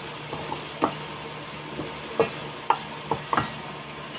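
Wooden spatula stirring and scraping pork sisig in a stainless steel pan, with irregular knocks against the pan over a steady frying sizzle.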